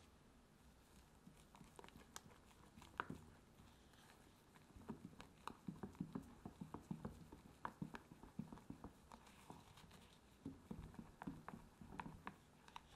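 Faint irregular taps and scrapes of a silicone spatula against a glass measuring jug as thick cake batter is folded, with soft squishy sounds of the batter. The taps grow busier about five seconds in.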